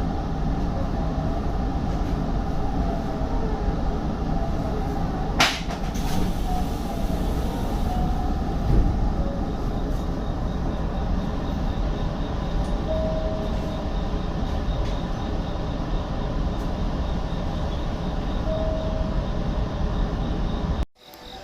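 Hanshin 5500-series train running along the Mukogawa Line, a steady rumble of wheels on rail heard from inside the rear car, with a sharp click about five seconds in. The sound cuts off abruptly just before the end.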